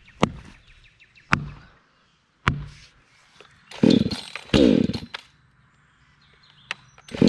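Proyama 68cc two-stroke chainsaw being pull-started: single sharp pops on the first pulls, then twice it fires and runs for about half a second, falling in pitch as it dies, and it fires again briefly near the end.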